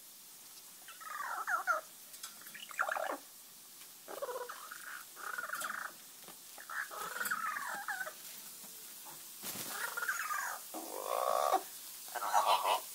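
A series of about eight short, wavering animal calls, each under a second long, with pauses between them, from the parrot and cat squaring off over the bed.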